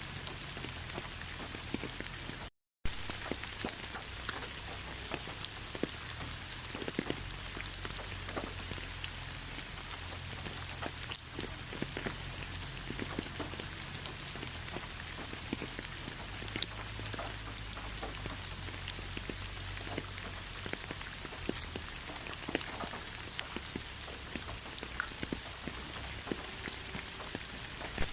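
Steady rain, with many individual drops ticking sharply against a constant hiss. About two and a half seconds in the sound cuts out completely for a fraction of a second, then resumes.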